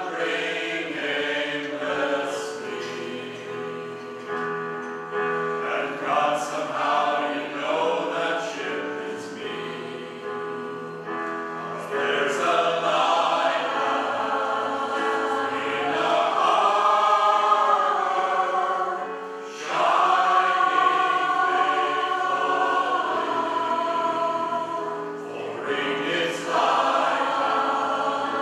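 A mixed gospel choir of women and men singing a slow song in harmony, with keyboard accompaniment. The voices swell louder about twelve seconds in, drop back briefly, and swell again near twenty seconds.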